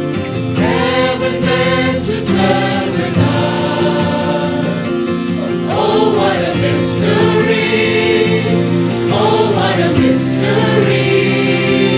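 Church choir singing a Christmas cantata song over sustained instrumental chords, with a light steady beat.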